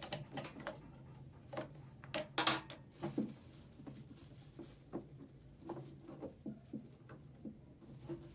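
Irregular light clicks, taps and knocks from handling a sewing machine's metal parts and tools, with one sharper knock about two and a half seconds in.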